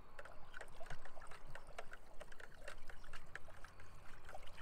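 Water sloshing and splashing as it is stirred hard in circles in a plastic 5-gallon bucket, with many small irregular splashes.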